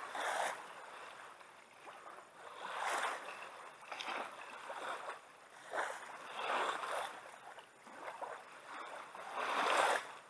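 Small waves lapping and splashing against a kayak's hull, in irregular swells every second or two.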